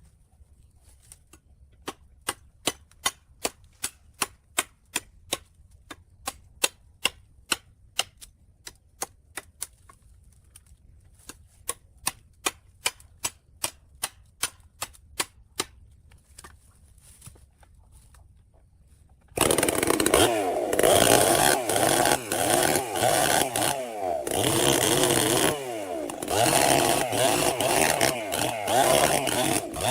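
A run of sharp, evenly spaced ticks, about three a second, for most of the first two-thirds. Then a two-stroke chainsaw comes in suddenly and runs loud, its revs rising and falling.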